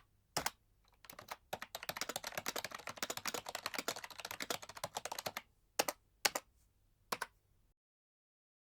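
Computer keyboard being typed on fast: a quick, dense run of key clicks, then a few single, separate keystrokes near the end.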